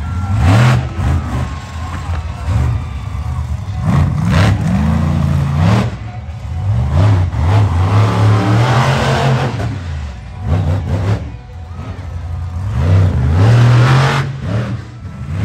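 Monster truck engines revving hard, the pitch repeatedly climbing and dropping back as the trucks drive on the dirt track, with a few sharp bangs in between.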